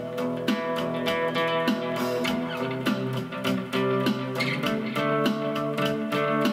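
Acoustic guitar played through a Zoom G1 Four effects pedal into a Roland Cube-10 amp on its JC Clean setting with a touch of reverb: evenly paced plucked notes ring over a held low note, which stops near the end.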